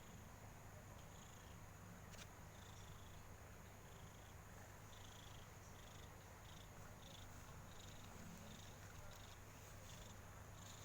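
A domestic cat purring steadily, a sign of contentment.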